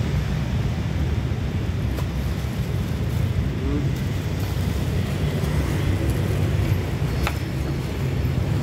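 Steady low rumble of street traffic, with two faint sharp clicks, one about two seconds in and one about seven seconds in.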